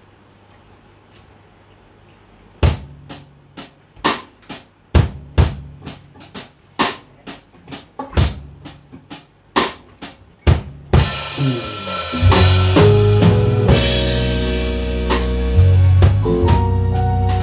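A quiet stretch, then a live rock band's drum kit plays separate hits on the kick drum, snare and cymbals from about two and a half seconds in. About eleven seconds in, the full band comes in with bass and guitar, starting the next song.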